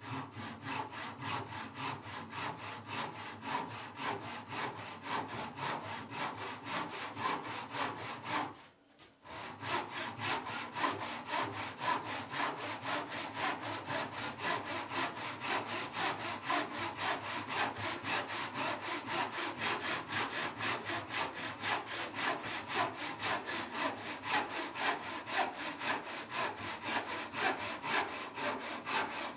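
Backsaw cutting through a pine board by hand, with fast, even back-and-forth strokes. The sawing pauses for about a second around nine seconds in, then carries on steadily.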